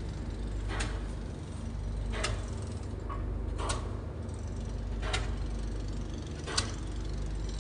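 Boat engine running with a steady low drone while under way, with a sharp click or knock repeating evenly about every second and a half.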